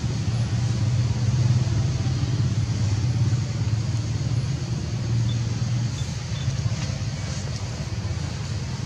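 A steady low rumble, like a motor vehicle running nearby, with a few faint high ticks about two-thirds of the way through.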